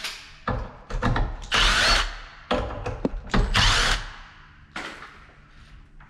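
Power drill driving out the screws of a door's latch plate: two short runs of the drill about two seconds apart, with clicks and knocks of the bit and the hardware around them.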